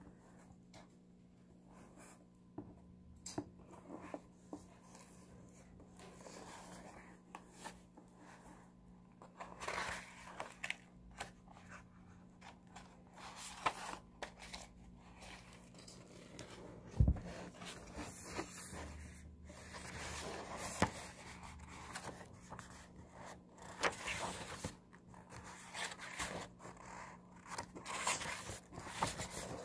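A hardcover book being handled and leafed through: paper pages rustling and scraping as they turn, with a single sharp thump a little past halfway and a faint steady low hum underneath.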